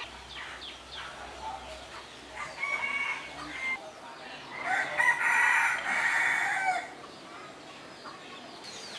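Rooster crowing twice: a shorter, fainter crow about two and a half seconds in, then a longer, louder crow lasting about two seconds near the middle.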